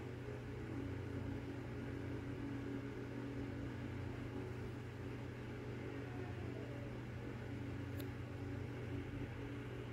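Steady low mechanical hum, even throughout, with one sharp click about eight seconds in.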